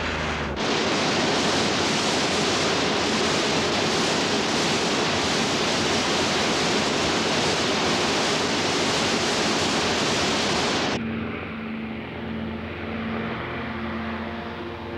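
Heavy rushing white water, a dense steady rush that cuts off abruptly about eleven seconds in. It gives way to the steady drone of a twin-engine propeller flying boat's engines on the river.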